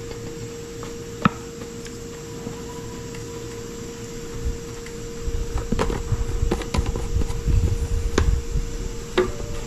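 Seasoning containers being handled while a fish is seasoned: a single click early, then from about five seconds in a run of irregular clicks and knocks over a low rumble. A steady faint hum runs underneath.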